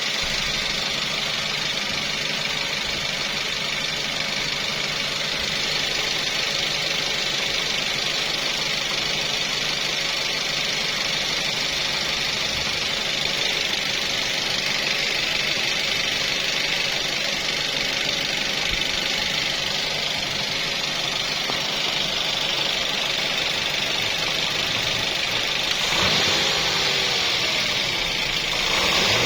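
Toyota/Daihatsu 3SZ-VE 1.5-litre four-cylinder engine running steadily at idle with a ticking noise.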